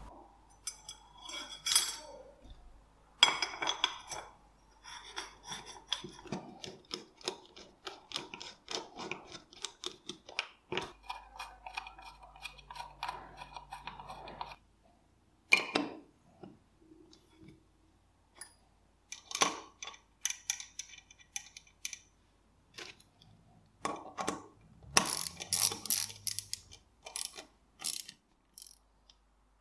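Small steel parts of an old nail gun clicking and clinking as they are handled and fitted together by hand. A long run of quick light ticking comes in the middle, and sharp metallic clicks follow, bunched together near the end.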